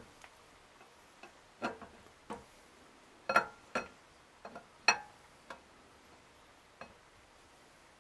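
Irregular light clicks and knocks, about a dozen, as a camshaft is eased out of an LS3 V8 block, its lobes and journals tapping against the cam bearings. The loudest knocks come a little before and after the middle.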